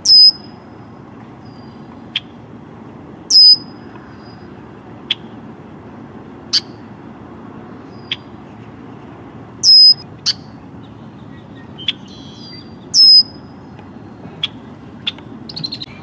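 Male red-winged blackbird calling: four loud, sharp calls a few seconds apart, each ending in a short high whistle. Quieter single chips come between them, and a brief buzzy run near the end, over steady background noise.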